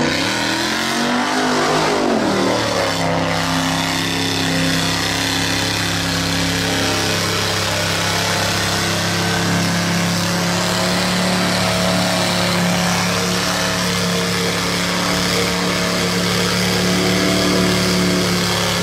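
Tube-chassis mud buggy's engine revving up and down for the first few seconds, then held at steady high revs as its tyres churn through deep mud.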